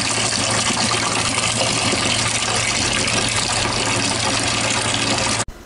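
Water running steadily from a newly replaced wall tap, a continuous splashing rush; it cuts off suddenly near the end.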